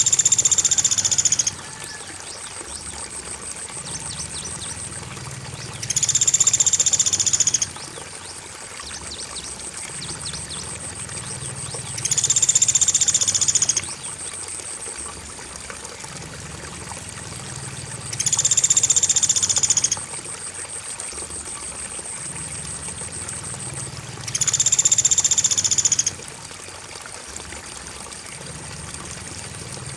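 Pelatuk beras bird call, a loud, high, dense trill lasting about a second and a half, repeating about every six seconds. Under it run a steady, high cricket chirring and the even rush of flowing water, a looped bird-training mix.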